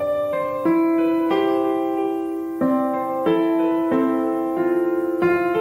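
Background piano music: slow held notes and chords that change about once a second.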